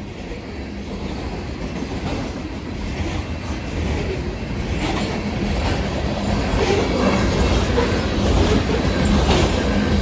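Freight train of covered grain hopper cars rolling past, steel wheels clacking over the rail joints, growing steadily louder as the cars come close.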